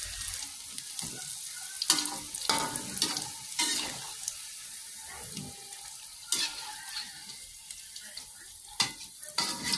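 Hot oil sizzling steadily as sticks of tempeh deep-fry in a wok, broken by several sharp clinks and scrapes of a wire spider strainer against the wok as the pieces are stirred and lifted out.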